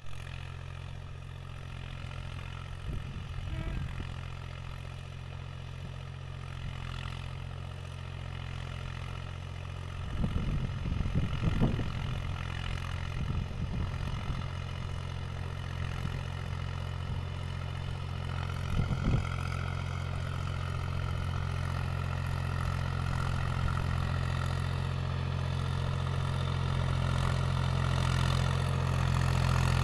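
Mahindra 265 DI XP Plus tractor's three-cylinder diesel engine running at a steady speed as the tractor drives closer, growing gradually louder. A few short rattling bursts break in partway through.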